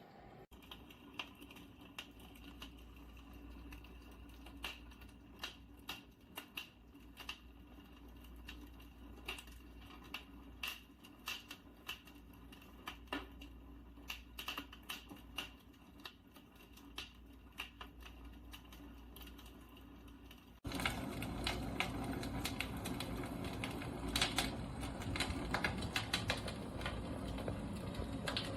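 Fireplace crackler sound box playing recorded log-fire crackling through its small speaker: irregular pops and snaps over a low hum. About 21 seconds in it suddenly becomes louder and denser.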